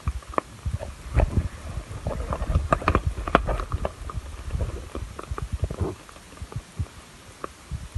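Handling noise from a hammock's fabric and a jacket rustling and knocking against a handheld phone as the hammock is pulled closed around her: irregular scuffs and low thumps, busiest in the first two-thirds and thinning out near the end.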